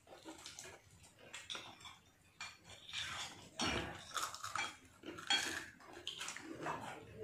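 Plates and spoons clinking and scraping in irregular small clicks as several people eat fried chicken and rice, with a dull knock about three and a half seconds in.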